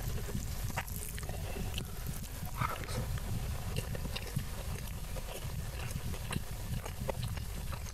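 A person chewing a mouthful of rice and thick Padang-style omelette with closed mouth, close to a clip-on microphone: steady low chewing sounds with many small wet mouth clicks.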